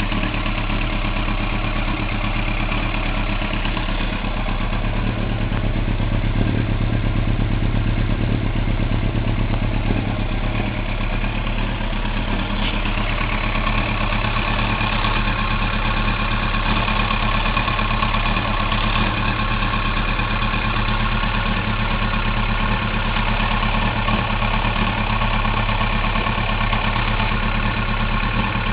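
1999 Yamaha YZF-R1 inline-four engine idling steadily, with a mechanical noise that the owner hears only when the engine is hot and cannot identify. Some higher-pitched tones grow stronger about halfway through.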